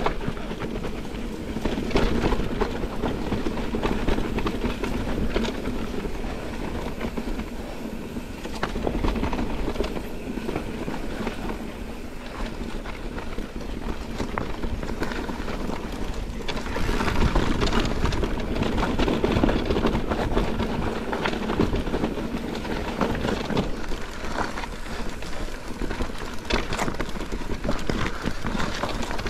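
Mountain bike descending a rough, rocky trail: tyres rolling and crunching over stones, with the bike rattling and clattering in many sharp knocks over the bumps.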